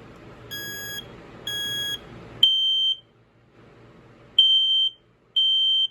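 FireX AD ionization smoke alarm's piezo horn beeping on test. It gives two weaker, rougher beeps about a second apart, then three loud, clear half-second beeps, uneven in spacing. The horn has issues: it is weak and finicky.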